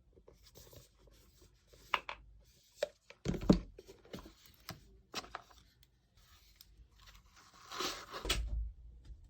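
Packaging being handled during an unboxing: paper or plastic rustling and tearing, with scattered clicks and two louder bursts of handling with dull thumps, about three and a half seconds in and again around eight seconds in.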